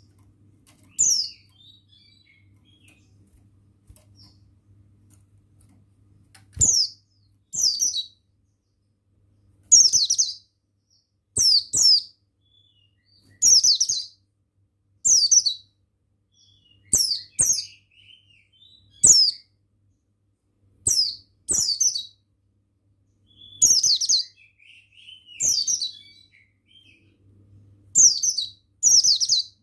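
Buxtoni white-eye (pleci) calling: short, high chirps that sweep down in pitch, repeated every second or two and often in pairs, with faint softer twittering between them. A faint steady low hum runs underneath.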